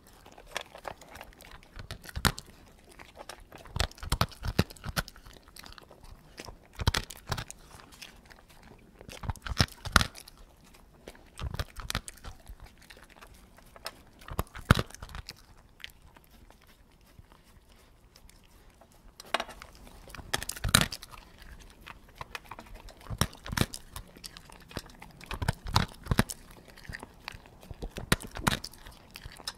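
A dog eating slowly from its bowl: irregular wet chewing and crunching of food, in uneven clusters with a quieter lull around the middle.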